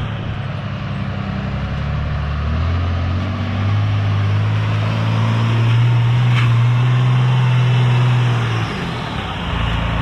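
A truck engine revving up about three seconds in, holding high revs under load for several seconds, then dropping back toward idle near the end.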